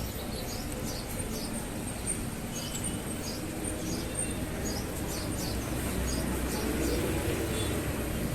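Small birds chirping, with many short high chirps repeating irregularly over a steady low background noise.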